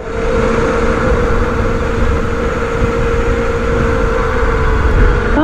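Enduro motorcycle engine running at steady revs, its note holding level, with a low rumble underneath.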